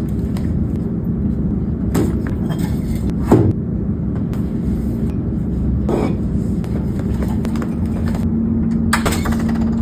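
Steady low rumble of a car in motion, with a steady hum and a few short knocks.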